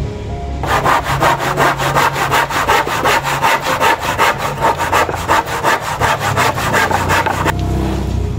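Hand saw cutting through a wooden plank in quick, even back-and-forth strokes, starting just under a second in and stopping about a second before the end.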